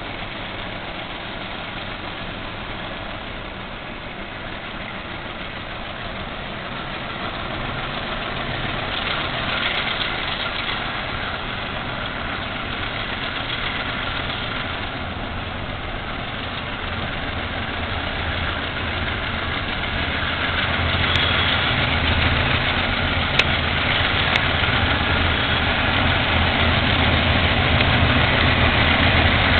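Pair of GE C30-7 diesel-electric locomotives working hard as they haul an empty freight train up a grade, the engine rumble growing steadily louder as they approach. A few short sharp clicks sound about two-thirds of the way through.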